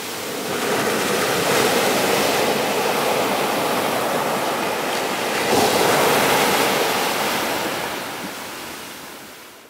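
Surf breaking on a sandy beach: a steady wash of waves that swells about halfway through and fades out near the end.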